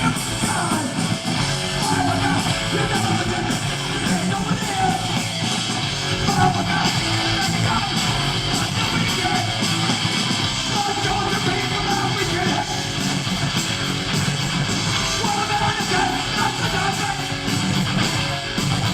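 A live hardcore punk band playing loudly, with distorted electric guitar and yelled vocals over a dense, unbroken wall of sound.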